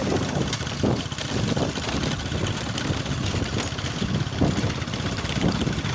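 Motorcycle engine running as the bike rides along a bumpy dirt track, heard from on board the moving bike, with an uneven low rumble.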